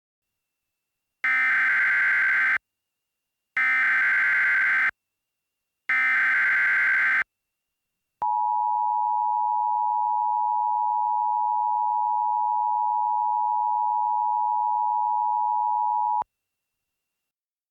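Emergency Alert System tones: three harsh, buzzy SAME header data bursts, each about a second and a half long, followed by the steady two-tone EAS attention signal lasting about eight seconds. Together they mark the start of a new emergency alert.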